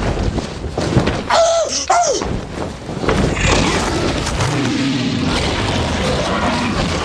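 Creature sound effects: a heavy thud, then a pterodactyl's screech with falling pitch about a second in, followed by a dinosaur's low rumbling growl as it lunges.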